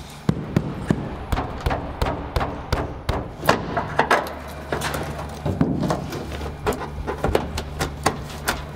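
Irregular series of sharp knocks and taps as a truck-cab windscreen is worked loose from its old, hardened rubber seal, over a steady low hum.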